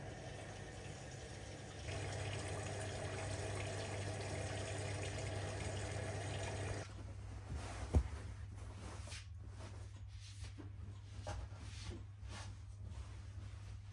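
Top-loading washing machine filling: water pours into the drum through the detergent dispenser in a steady rush that grows louder about two seconds in and cuts off abruptly near the middle. A single sharp knock follows about a second later, then soft, scattered rustling.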